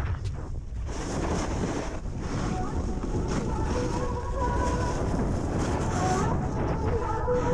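Wind noise on the microphone of a hand-held action camera as a snowboard slides down packed snow, with the hiss of the board on the snow. Faint steady tones come in a few seconds in.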